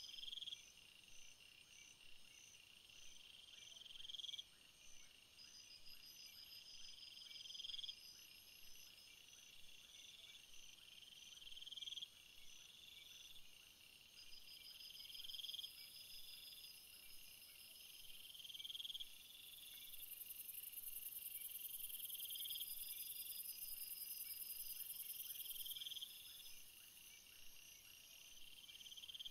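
Insects chirping: a steady, rapid, pulsed chirping, with a rising trill that repeats about every four seconds. A high hiss joins for several seconds past the middle.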